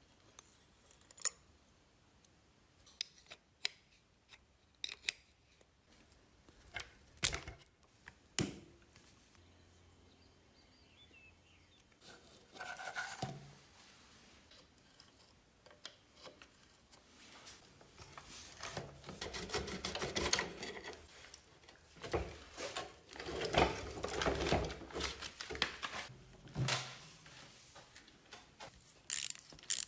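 Hand work on motorcycle parts: scattered sharp clicks and knocks, then a long stretch of irregular scraping and rubbing, with a few more clicks near the end.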